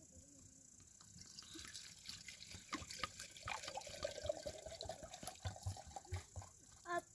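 Water poured from a narrow-necked jug into a small teapot: a splashing trickle that settles into a steady filling tone as the pot fills, with a short knock near the end.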